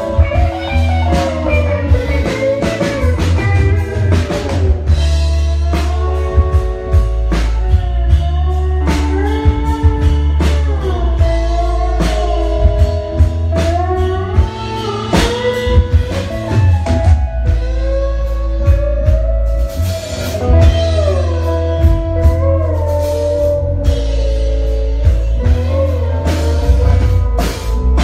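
Live country-rock band playing loud: electric guitars, one playing a lead line with bending notes, over a drum kit and a heavy low end.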